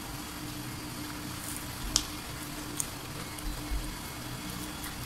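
A sharp crunch about two seconds in as a bite is taken from crispy breaded fried chicken, followed by a few quieter chewing crunches, over a steady low hum.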